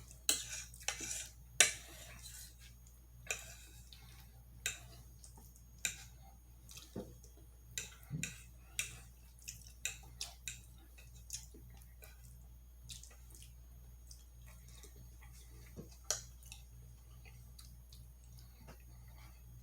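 Close-miked eating sounds: wet mouth clicks and smacks while chewing, frequent in the first half and thinning out after about twelve seconds, over a steady low hum.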